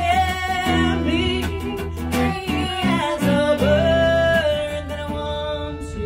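A live acoustic song: a woman singing over a strummed Fender acoustic guitar with a violin playing alongside.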